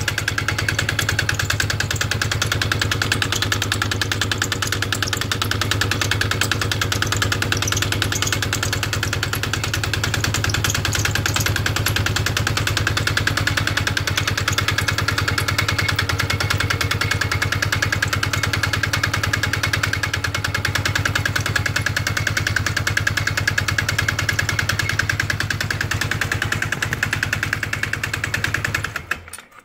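Polaris Sportsman X2 EFI ATV engine idling steadily while cold at −12 °C, with the knocking sound that it makes only when cold. The engine cuts off just before the end.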